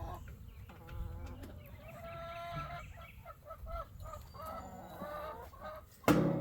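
Chickens clucking and calling, a string of short pitched calls one after another. A loud sudden sound cuts in just before the end.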